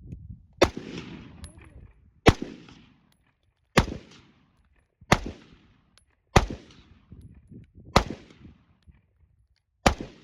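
AR-15 rifle fired seven times at a slow, steady pace, a shot roughly every one and a half seconds, each crack trailing off in a short echo.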